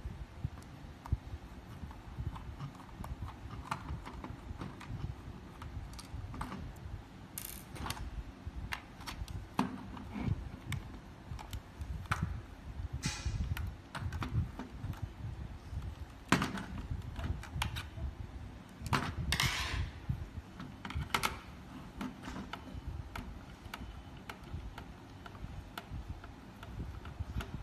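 A small screwdriver working screws in plastic RC digger parts and the parts being handled on a wooden table: irregular clicks and taps, with a few short scrapes.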